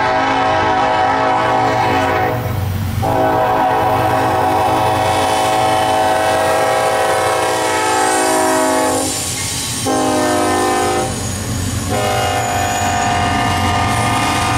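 Norfolk Southern GE AC44C6M diesel locomotive's air horn sounding the grade-crossing pattern as the freight train passes: a long blast ending, a long blast, a short one, then a long one held on, over the steady rumble of the engine and the train.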